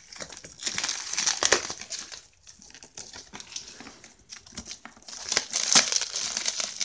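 Crinkly see-through plastic packaging being crumpled and torn open by hand, an irregular crackling that is loudest about a second in and again near the end.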